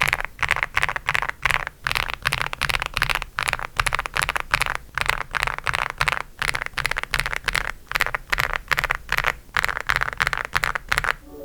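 Single keys on a stock Aula F75 mechanical keyboard with Outemu Hanny linear switches pressed and released one after another, a steady run of sharp clacks about four a second.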